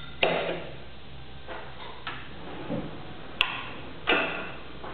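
Irregular metallic clunks and clicks from a stainless steel reel lifter's clamp attachment as the clamped paper reel is turned upright. There are about six knocks, the loudest just after the start and about a second before the end.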